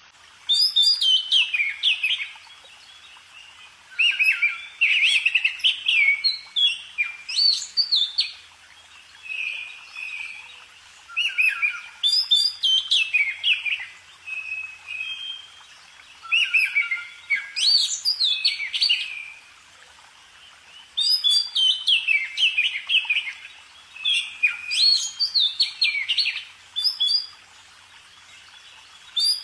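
A songbird singing in repeated bouts of quick, sliding chirps and whistles, each bout lasting a few seconds with brief pauses between, and a softer, simpler phrase near the middle.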